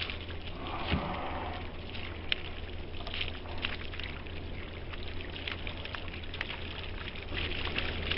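Water pouring steadily onto a person's head and shoulders and splashing off, a continuous spatter with many sharp drips and splashes.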